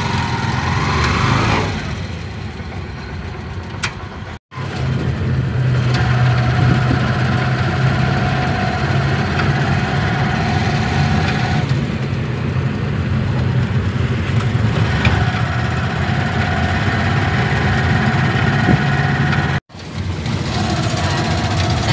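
Engine of a moving vehicle heard from inside while riding, a steady low hum with road noise. The sound cuts out completely twice, briefly, about four and a half seconds in and near the end.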